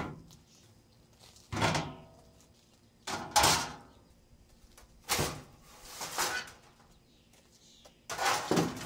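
Scrap sheet-metal panels and grates from a dismantled air conditioner set down one after another in a pickup truck bed: a series of clanks and rattles, about six, one to two seconds apart.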